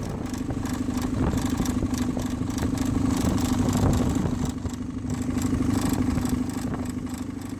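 An Evinrude outboard motor idles steadily while it is run on its trailer with a hose feeding it water.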